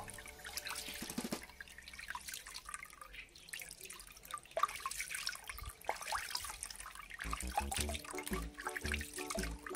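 A stream of water pouring and splashing into a tub of water. Music with a steady low beat comes in about seven seconds in.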